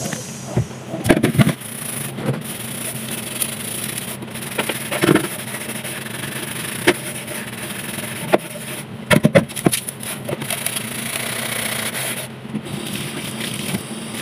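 Dishes being washed by hand in a stainless steel sink: a pan scrubbed with a sponge, with scattered clinks and knocks of dishware against the sink. Tap water runs near the end.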